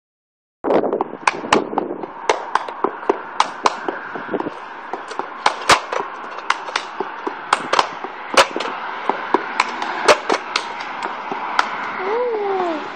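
Sharp percussive clicks, two or three a second in an uneven beat, over a steady hiss; near the end a short falling tone.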